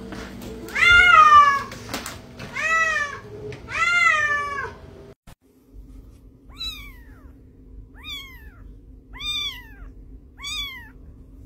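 Cats meowing: three loud, drawn-out meows, each rising then falling in pitch. After a sudden cut, a kitten gives four thinner, higher-pitched meows, evenly spaced about a second apart.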